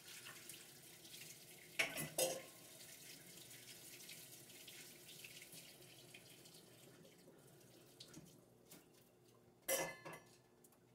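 Water running from a kitchen tap into a sink, a fluctuating hiss that eases off near the end, with two brief clatters, about two seconds in and near the end.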